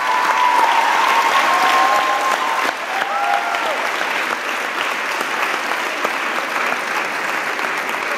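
Audience applauding, with a few held cheers over the first three seconds, after which the clapping carries on slightly quieter.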